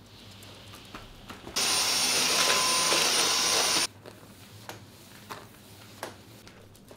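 A small electric appliance motor switched on for about two seconds, running steadily, then cut off suddenly, with light clicks and knocks before and after.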